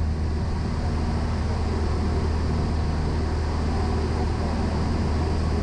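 Cessna 172M's four-cylinder Lycoming engine and propeller droning steadily in flight, heard inside the cabin as a deep, even hum.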